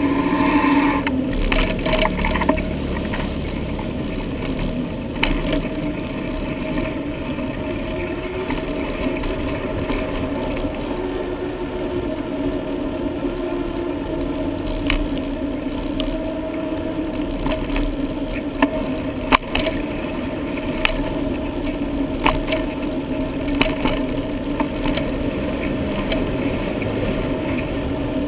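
Riding noise picked up by a helmet-mounted GoPro HD Hero on a moving bicycle: a steady rumble of wind and tyres on the road, with scattered sharp clicks and knocks, several in the first couple of seconds.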